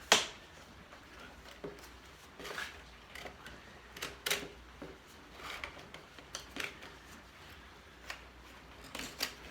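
Irregular small clicks and knocks of hands handling a motorcycle soundbar and its mounting hardware, with one sharp click right at the start.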